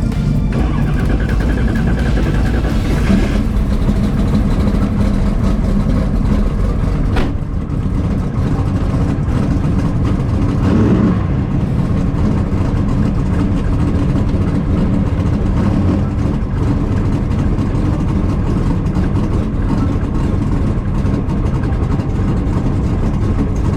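Car engine running loud and steady, with a brief swell about eleven seconds in.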